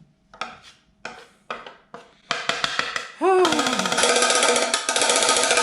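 Music with drums: a few separate drum hits, then a rapid snare drum roll that swells into loud, full music about halfway through.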